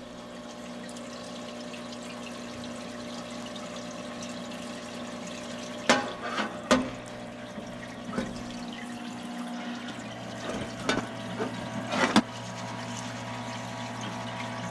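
Parts-washer pump running with a steady hum as solvent streams from its flexible nozzle into the tub while trailer wheel bearings are washed. A few sharp metal clinks from the bearing parts knocking in the basin, around the middle and once more later.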